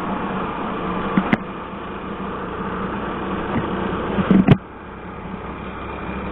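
Yamaha SZ single-cylinder motorcycle engine running while riding, with road and wind noise. Two sharp knocks cut through, one about a second in and a louder one near the middle. After the second knock the engine sound drops and goes quieter.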